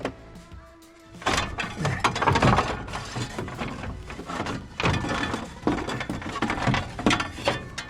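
Irregular clattering, knocking and scraping of parts being worked loose by hand in a car's engine bay, with a sharp click at the very start.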